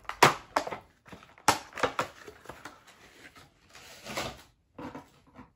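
A cardboard box and its packing being handled and opened: an irregular run of sharp clicks, knocks and rustles that stops abruptly near the end.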